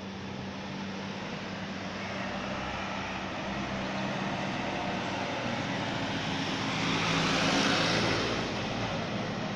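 A passing vehicle: a broad rushing noise swells slowly to its loudest about seven to eight seconds in, then fades, over a steady low hum.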